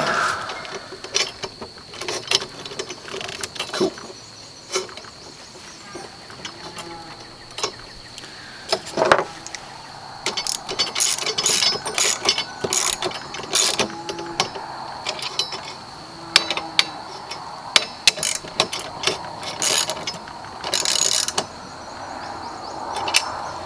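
Hand tools and steel mill parts clicking and clinking while bolts are fitted and snugged on an Alaskan chainsaw mill, with runs of rapid ratchet-like clicking in the middle and near the end. A faint steady high tone sits under it throughout.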